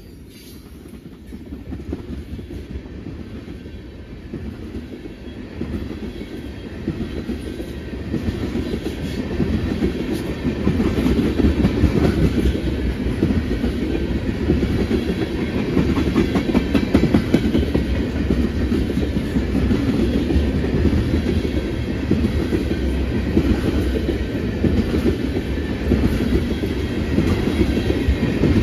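Freight train cars rolling past: steel wheels clattering over the rail joints in a steady clickety-clack. The sound grows louder over the first ten seconds, then holds steady.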